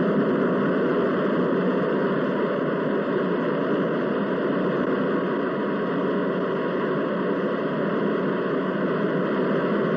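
Loud, steady engine-room din of banks of Caterpillar diesel generator engines running, an even noise without a distinct beat.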